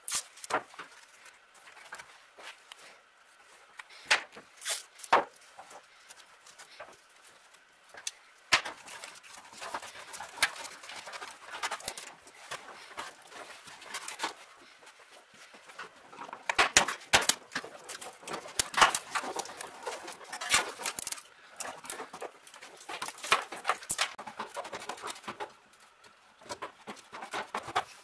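Irregular clicks, rustles and knocks of an old wiring harness being handled and pulled at the firewall, with wires and plastic connectors tapping the car's sheet metal. The clatter is busiest in the second half.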